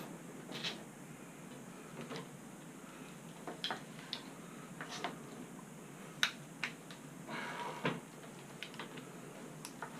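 Scattered light clicks and metal clinks of hand tools and parts being handled during motorcycle front-fork disassembly, with a short rustling scrape about seven seconds in.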